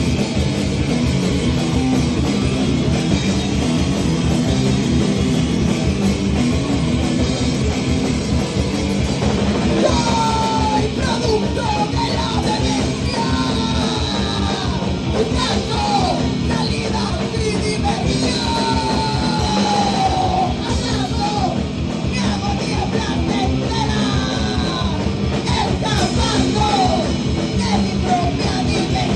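Loud live punk/metal band playing a song with distorted guitar and drums, and shouted vocals. From about ten seconds in, high sliding squeals rise and fall over the music.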